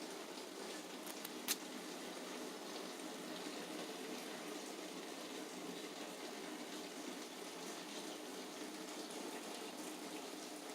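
Steady rain, a continuous even patter heard from inside a small room, with one sharp click about a second and a half in.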